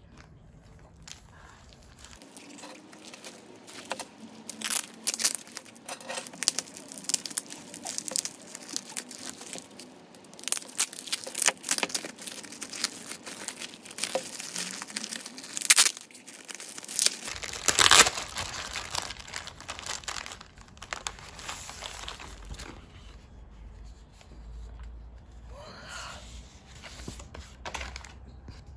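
Clear plastic packaging bag crinkling and tearing as hands work it open, a slow, fiddly job. Sharp crackles keep coming, loudest about two thirds of the way in.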